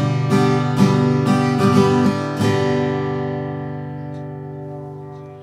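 Herman 600 acoustic guitar with a solid spruce top, strummed: a run of chord strokes over the first two and a half seconds, then a final chord left to ring and slowly die away.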